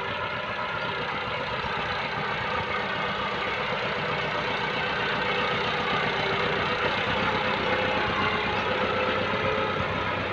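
Massey Ferguson 375 tractor's diesel engine running steadily under load as it pulls a 13-tine spring cultivator with a wooden levelling plank dragged beneath it, growing slightly louder as the tractor comes closer.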